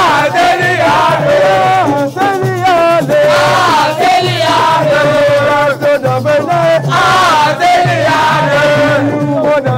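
A crowd of young people singing a repeated chant together over percussion, with many sharp strikes.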